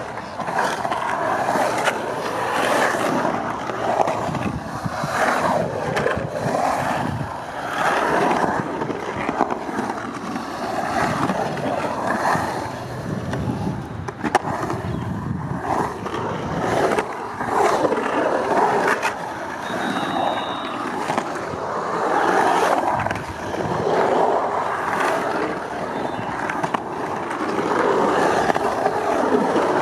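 Skateboard wheels rolling on the concrete bowl, the roar swelling and fading every few seconds as the skater carves up and down the walls. A couple of sharp knocks break in, one about four seconds in and one near the middle.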